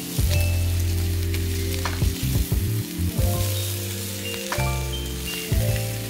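Thick strips of meat sizzling on a griddle over a portable butane gas stove, with a steady hiss. Soft background music of sustained low notes changing every second or so plays over it.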